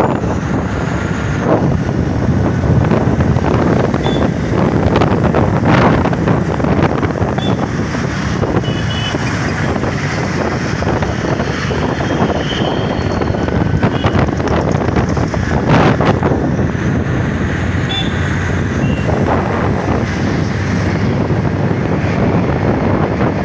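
Wind buffeting the microphone on a moving motorbike, over a steady rumble of the bike and the traffic around it.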